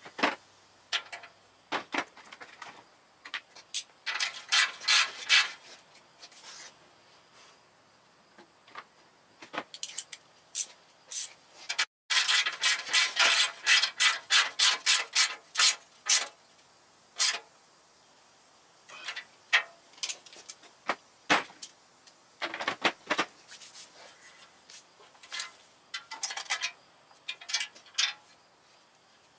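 Hand ratchet wrench clicking in fast runs as bolts are turned, with the longest runs a few seconds in and around the middle, and metal tools and sockets clinking in between.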